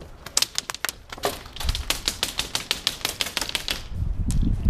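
Airsoft gunfire: a string of sharp clacks, scattered at first, then a fast run of about ten a second from about a second and a half in until nearly four seconds. A low rumble follows near the end.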